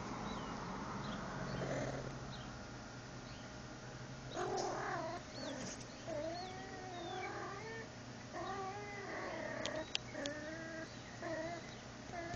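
Domestic cat making a run of short, warbling chirp-like calls that sound like pigeon noises, starting about four seconds in and repeating with brief gaps.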